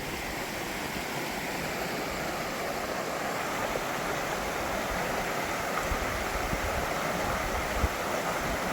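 A brook babbling steadily: a constant rush of flowing water.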